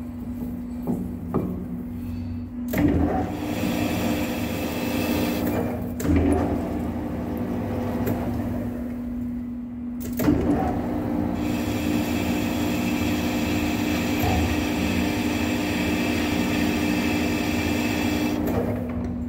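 Hafco centre lathe running with a steady hum while its cutting tool turns the end of a 6-inch chrome-plated steel cylinder rod. The cut is a dense metallic hiss, first for about three seconds and then again for about eight seconds. A couple of light knocks come before the first cut.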